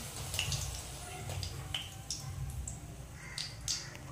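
Hot cooking oil in a wok crackling with faint, scattered pops as fried raw-banana slices are lifted out on a wire skimmer.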